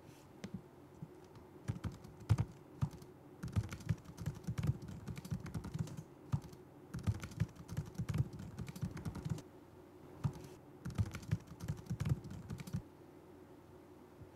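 Typing on a laptop keyboard: four bursts of rapid key clicks with short pauses between them, stopping a little before the end.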